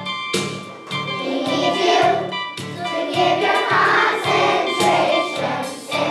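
A choir of first-grade children singing together over accompaniment with a steady bass beat.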